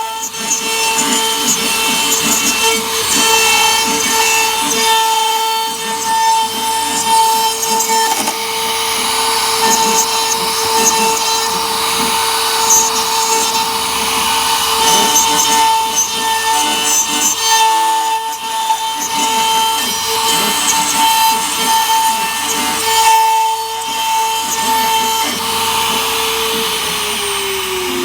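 CNC router spindle whining at a steady pitch while its bit cuts into wood, with a rough rasping from the cut. Near the end the whine falls in pitch as the spindle slows down.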